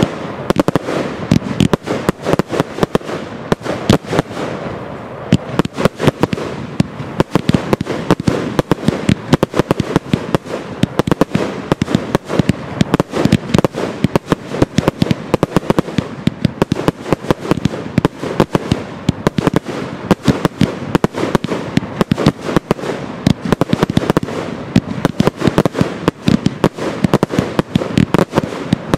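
Fireworks display going off in a dense, continuous barrage: many sharp bangs and crackles a second with no let-up.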